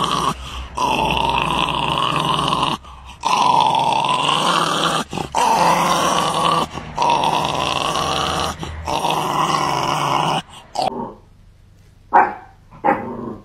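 Jack Russell terrier growling in long drawn-out growls of one to two seconds each, broken by short pauses, then two short barks near the end.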